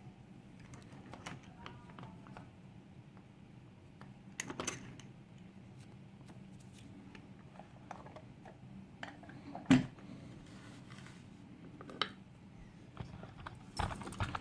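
Scattered small metallic clicks and taps of a picked euro cylinder lock and tools being handled as it is taken apart for gutting, with one sharper click a little under ten seconds in, over a faint steady hum.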